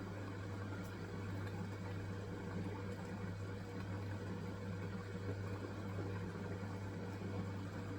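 Hisense washing machine running on its wool cycle: a steady low hum with a faint higher tone, no change in level.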